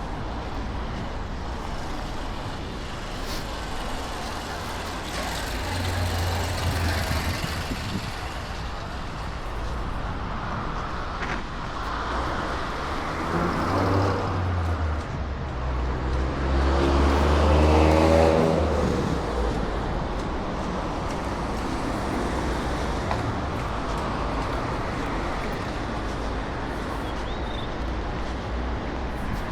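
Road traffic: a car passes close by about halfway through, its engine note rising and then falling as it goes. Under it runs a steady hiss of wind and distant traffic.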